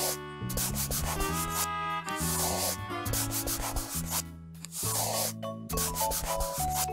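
Scratchy pen-on-paper drawing sound effect, coming in patches every couple of seconds, over light children's background music with held notes and a bass line.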